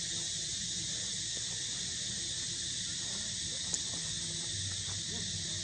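Steady high-pitched insect chorus from the forest canopy, an even shrill hiss. Faint low-pitched sounds come and go underneath, and a single sharp click is heard about two-thirds of the way through.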